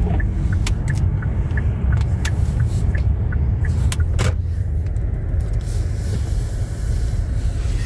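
Car running, heard from inside the cabin as a steady low rumble. A faint regular ticking about three times a second fades out about halfway through, and a few sharp taps fall on the car, the loudest about four seconds in, as rain begins.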